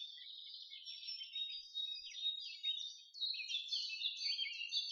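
Songbirds singing, a busy run of quick high chirps and trills.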